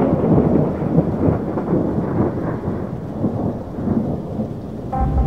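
Thunder rolling and crackling over steady rain. Music starts right at the end.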